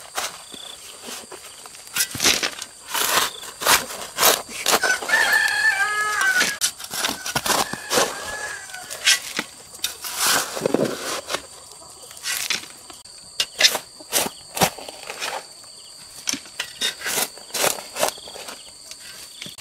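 A rooster crows once about five seconds in, with a shorter call after it. Irregular crunching knocks run throughout, over a steady high-pitched hum.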